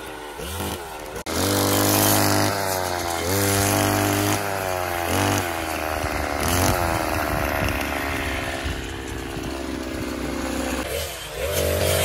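Backpack petrol brush cutter running and cutting tall grass, its engine revving up and falling back again and again as the blade bites into the grass. The sound drops out for an instant about a second in.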